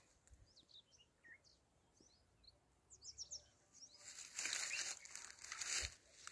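Faint, scattered high chirps of small birds through the first three seconds, then from about four seconds in a rustling crunch of dry grass and fallen bamboo leaves for a couple of seconds.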